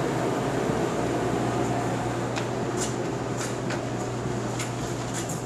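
Steady hum of building ventilation or air handling, with a few sharp, irregular clicks from about two seconds in.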